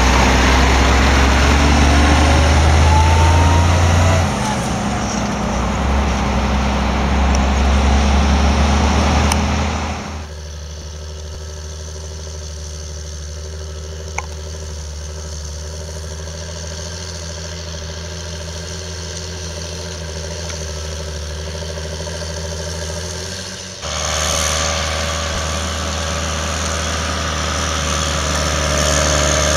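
A heavy truck towing two grain trailers drives past on a dirt track, its engine loud and easing off after about four seconds. About ten seconds in, it gives way to the steadier, quieter engine note of a John Deere tractor ploughing, with a single click a few seconds later. About two-thirds of the way through comes the louder engine of a Case IH tractor pulling a grain trailer.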